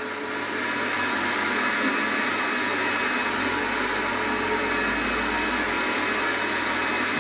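Steady whirring of a running electric motor, even in level, with a faint steady hum in it.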